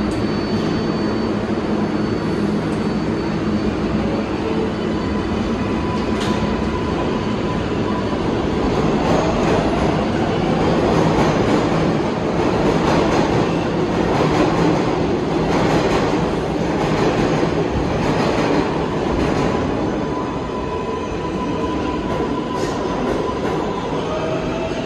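R188 subway train of the 7 line running along the rails with a steady rumble and a faint high wheel squeal. A rising whine comes in near the end.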